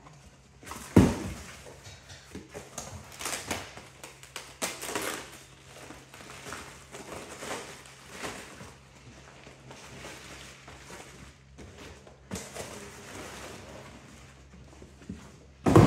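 Cardboard boxes and packing paper being handled as a boxed part is unpacked: rustling, scraping and crinkling, with a sharp knock of a box set down on a metal table about a second in.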